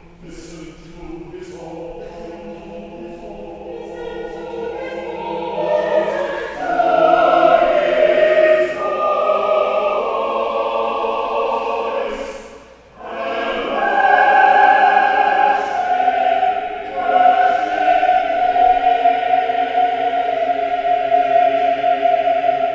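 Mixed church choir of men and women singing an anthem together, starting softly and swelling, with a brief break about halfway through, then a loud closing section that ends on long held notes.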